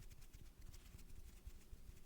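Faint, quick little taps and scratches, close-miked ASMR trigger sounds.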